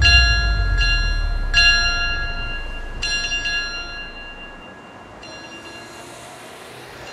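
WWE ring bell struck about six times at uneven gaps, each strike ringing on and dying away, the last one fainter. A low rumble sits beneath the first few strikes and fades out.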